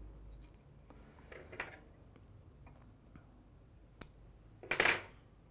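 Small fly-tying scissors handled and snipping at a fly in the vise: a few faint clicks, a sharp click about four seconds in, then a short, louder rasp just after it.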